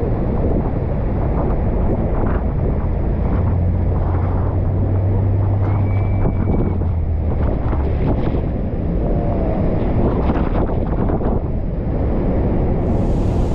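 Loud, steady rush of wind on the microphone mixed with crashing water and spray as a tour boat runs in close under a waterfall. A low engine hum rises out of the noise for a few seconds in the middle.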